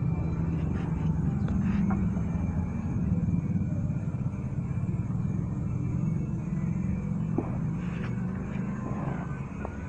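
A steady low mechanical hum, with a few light knocks as a rubber V-belt is worked by hand onto the pulleys of a belt-driven air compressor.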